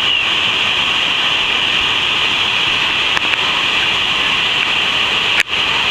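Niagara Falls' falling water, a loud, steady, even rush heard close to the falls. Near the end there is a sharp click with a momentary dropout.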